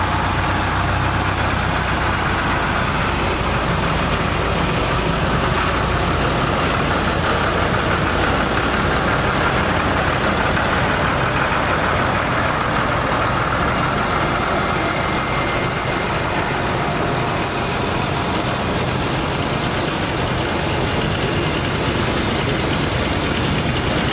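Farm tractor engines running steadily as tractors drive slowly past one after another.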